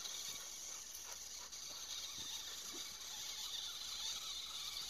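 Faint sounds of two dogs at play, a few light scuffles and ticks, over a steady high hiss.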